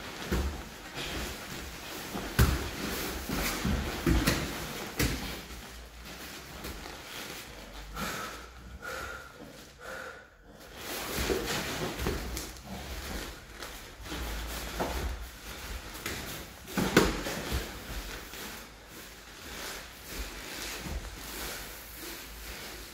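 Grappling on foam mats: bodies and heavy cotton gis shifting and rubbing, with scattered thumps of limbs and bodies on the mat, the loudest about two thirds of the way through.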